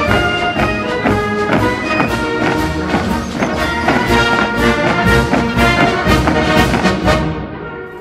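Brass band music with a steady beat of about two a second, fading out near the end.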